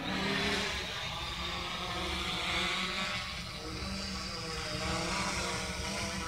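3DR Solo quadcopter's propellers and motors buzzing in flight, a steady many-toned whine as the drone flies close.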